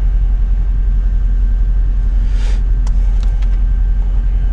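2008 Mercedes E550's V8 engine idling with a steady low rumble. About halfway there is a brief rushing noise, followed by a few light clicks of the dashboard radio buttons being pressed.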